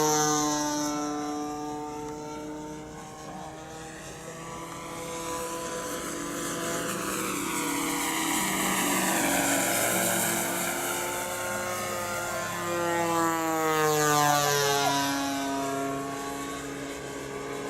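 Radio-controlled P-51 Mustang model of 1400 mm wingspan, with an onboard engine sound unit, flying passes: a steady piston-engine-like drone with propeller noise whose pitch slides down as it goes by, rises as it comes round again, and drops on another pass about fourteen seconds in.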